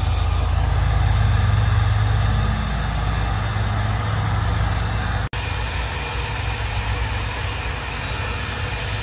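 Handheld electric heat gun running, its fan blowing a steady rush of air with a low motor hum. The sound drops out for an instant about five seconds in.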